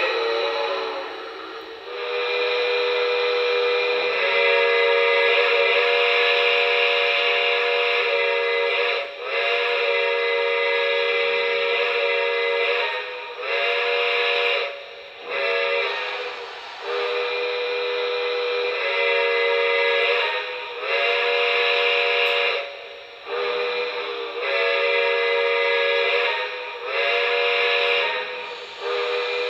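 Steam locomotive chime whistle, several tones sounding together, blown over and over in long and short blasts with brief breaks between them; each blast slides up in pitch as it opens.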